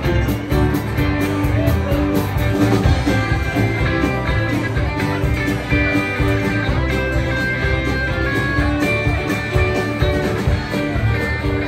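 Live band playing a guitar-led song: acoustic and electric guitars over a steady drum beat.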